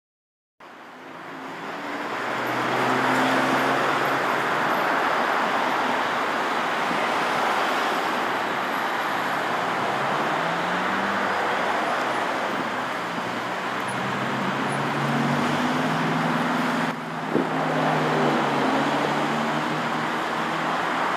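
Road traffic noise: a steady rush of passing cars with the hum of their engines, one engine rising in pitch as it speeds up about halfway through, and a brief knock near the end.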